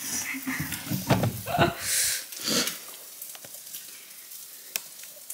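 Bread frying in butter in a pan, a faint sizzle with a few sharp crackles. Brief low vocal sounds come in the first couple of seconds.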